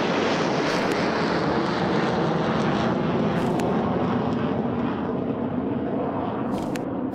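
Steady rushing drone of a jet airliner in flight, as heard from inside the cabin, laid in as a sound effect. A few brief clicks sound over it, and the drone eases slightly near the end.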